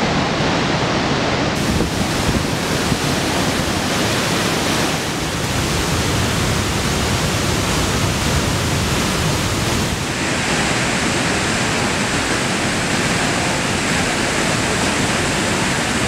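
Iguazu Falls: the steady, heavy rush of a large waterfall, with its tone changing abruptly about a second and a half in and again about ten seconds in.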